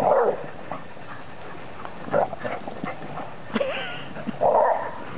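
Two dogs play-fighting, with rough growling play barks ("rrrr-ruff") right at the start and again about four seconds in, and a few shorter sharp calls between.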